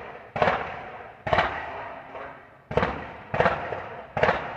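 Car exhaust backfiring in loud, gunshot-like bangs: five sharp cracks at irregular spacing of about a second, with a weaker one among them, each ringing out briefly in echo.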